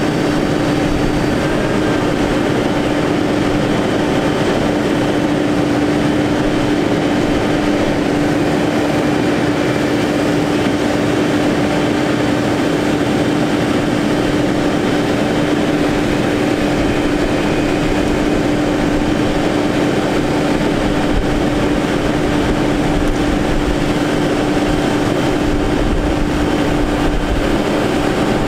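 Crane truck's Cummins ISX diesel engine running steadily while the hydraulics of the Altec telescopic crane lower the boom. One steady humming tone sits over the engine noise.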